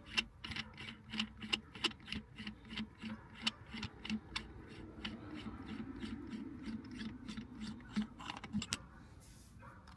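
A steady run of short clicks, about three a second, from hand work on a car's shifter assembly as a part is worked to make it grab. The clicks stop about nine seconds in.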